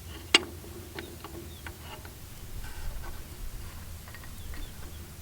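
A sharp click about half a second in, then a few fainter clicks and ticks over a low steady hum: small hard objects being handled, knocking or clicking against each other.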